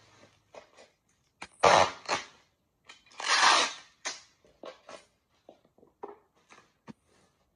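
Bubble wrap rustling and crinkling as it is rolled and pressed around a package, with two louder rustles about two and three and a half seconds in, then scattered short crackles.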